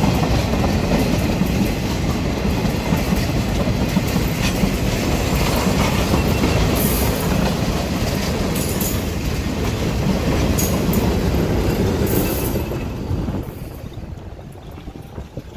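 Bauxite freight train's tank wagons rolling past with a steady loud rumble of wheels on rail, broken by a few brief high-pitched wheel squeals. It fades away over the last few seconds as the end of the train passes.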